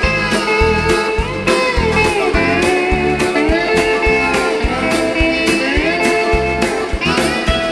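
Live rock band playing an instrumental passage: drum kit keeping a steady beat under bass guitar, with electric guitar notes sliding up and down, and a button accordion (bayan).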